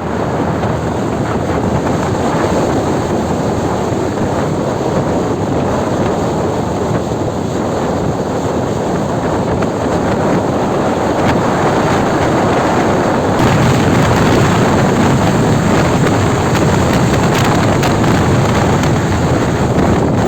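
Steady wind noise on the microphone of a camera riding along on a moving motorcycle, loud and even, growing a little louder about 13 seconds in.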